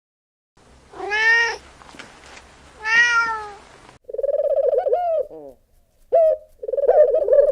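A cat meows twice, two drawn-out meows about a second and a half apart. About four seconds in, a different animal takes over with a pulsing, trilling call in several bouts.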